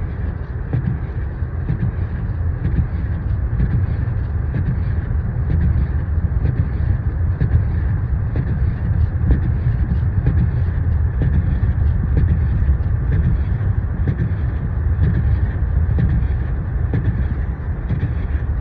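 Steady low rumble of a car driving: engine and tyre noise heard inside the moving car.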